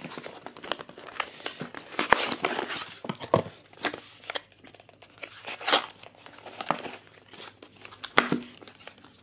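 White paperboard earbud box handled and opened by hand: cardboard flaps and an inner box sliding and scraping, with crinkling rustles and irregular sharp clicks and taps.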